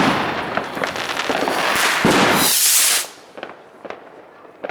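Fireworks and firecrackers going off in a dense crackling barrage of rapid pops and bangs. It ends in a loud hissing crackle and stops suddenly about three seconds in, leaving only a few scattered pops.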